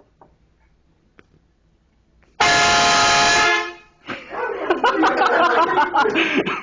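A train horn gives one loud blast of a little over a second, starting suddenly about two and a half seconds in. Loud voices break out right after it.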